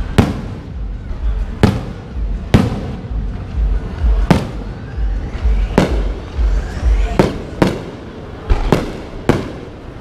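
Aerial fireworks bursting overhead: about nine sharp bangs in ten seconds at irregular spacing, a few close together, with faint rising whistles between some of them.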